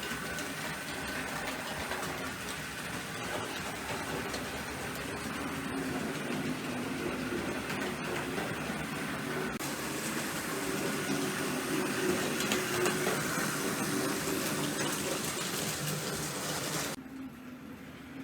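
Hornby Dublo Type 1 model diesel locomotive running on two-rail track: a steady whir from its electric motor and wheels with occasional clicks. It grows a little louder in the middle and drops off sharply near the end.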